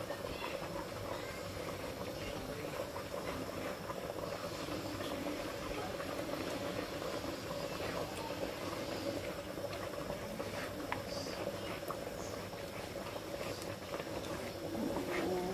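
A pot of goat light soup broth boiling steadily, with bubbling throughout. Over it a wooden spoon presses cooked tomato, pepper and onion pulp through a wire mesh strainer, giving faint scrapes and ticks.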